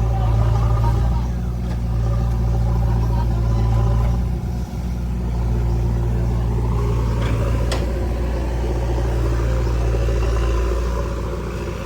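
Heavy diesel engine of an earthmoving machine running steadily at a constant speed, with a brief dip about four and a half seconds in and a sharp click near eight seconds.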